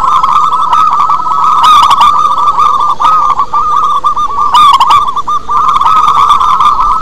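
Zebra dove (perkutut) cooing: a continuous run of fast, trilled coo notes. Two short, sharper bird calls cut in, about two and four and a half seconds in.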